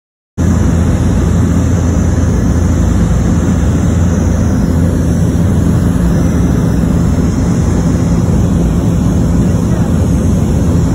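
Small sightseeing airplane's engines and propellers droning steadily, a loud, even hum with low steady tones that cuts in abruptly just under half a second in.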